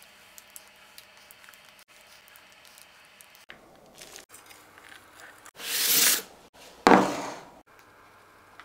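Soft kitchen handling sounds, then two loud bursts of noise about six and seven seconds in, as mascarpone cream is squeezed out of a piping bag onto the dish.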